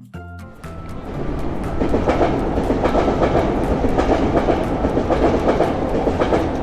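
A train passing, rising over the first second or two to a loud, steady rumble with repeated clicks of the wheels on the rails.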